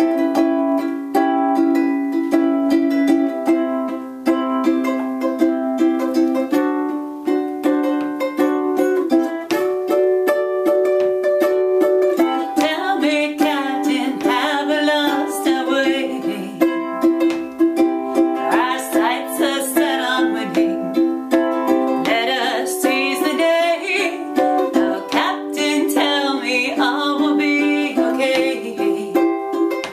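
Ukulele strummed in a steady rhythm through an instrumental stretch of a song. From about 12 seconds in, a higher, wavering melody line plays over the chords.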